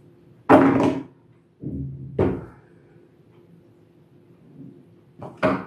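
A few short knocks and handling sounds as a smartphone is set down into its cardboard box on a table, the loudest about half a second in, another around two seconds in and one near the end.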